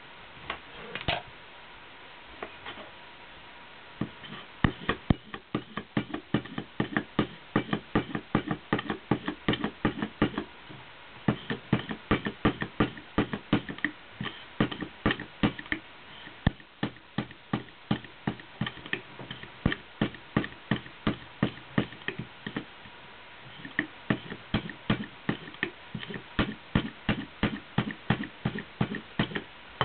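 Rapid light taps or clicks, about three to four a second, in runs broken by short pauses; a faint steady high tone sits underneath.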